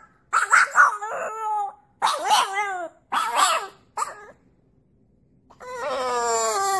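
French bulldog howling: a run of short, wavering howls, then one longer, steady howl near the end.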